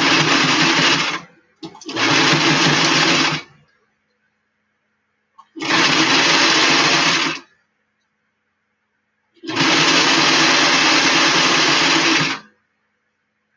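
Electric sewing machine running in four short bursts of stitching, each starting and stopping abruptly; the last run is the longest.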